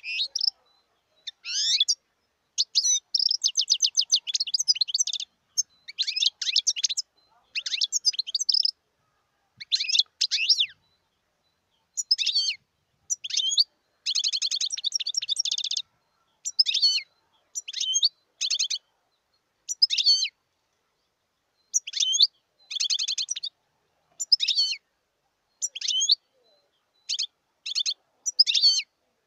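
Wild European goldfinch singing: a steady run of short, high twittering phrases separated by brief pauses, with two longer rapid trills, a few seconds in and again about halfway through.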